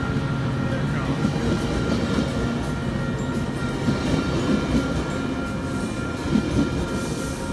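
Metrolink bilevel commuter coaches rolling past as the train pulls out of the station: a steady rumble of steel wheels on the rails, with a few louder knocks from the wheels over the track in the latter half.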